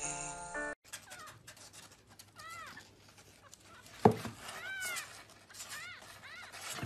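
Kittens mewing: about six short, high, arched mews in pairs, with a single thump about four seconds in.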